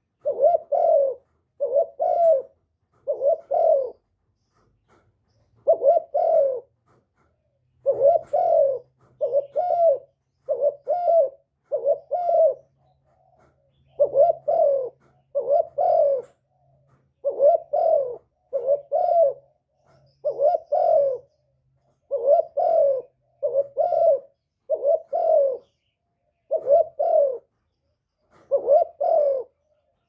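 Spotted dove cooing close by: short, hoarse coos repeated about once a second in runs of two to four, with brief pauses between runs.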